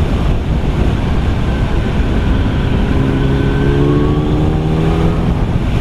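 Yamaha YZF-R1 (RN19) inline-four engine running under way, mixed with heavy wind rush over the microphone. About three seconds in, the engine note comes through more clearly and climbs slowly as the bike pulls harder.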